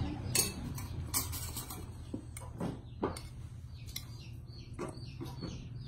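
Spoons and a ladle tapping and clinking against ceramic bowls: a scattering of light, short clinks.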